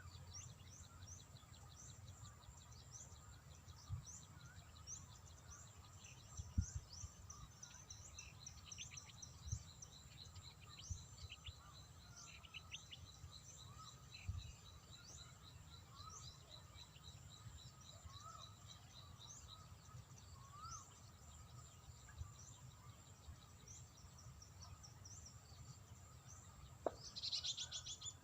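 Several birds chirping and calling, with many short sweeping notes, over a faint low rumble, with a thin high steady trill for several seconds in the middle. Near the end there is a brief denser flurry of chirps.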